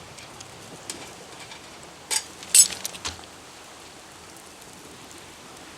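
A few sharp knocks and clinks of tableware being handled, the loudest two close together near the middle, over a steady background hiss.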